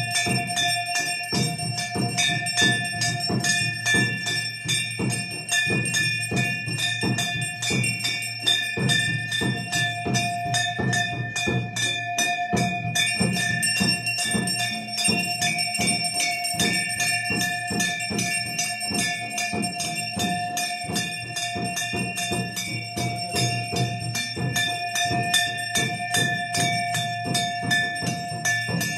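Metal temple bells rung rapidly and without pause, the strikes coming thick and fast over a steady ringing tone, as bells are sounded during an aarti.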